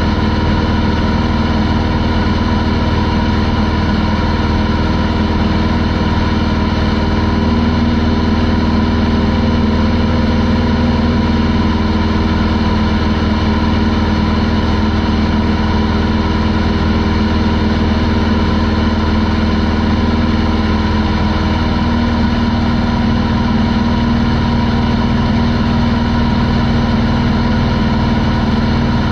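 Corvair air-cooled flat-six engine and propeller of a Pietenpol Air Camper running at a steady cruise setting in flight, a constant drone with no change in pitch.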